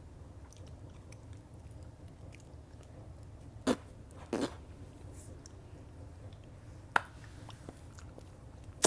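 Someone chewing a soft, gummy mochi, quiet and close, with two short louder mouth sounds a little under four and a half seconds in and a sharp click near seven seconds.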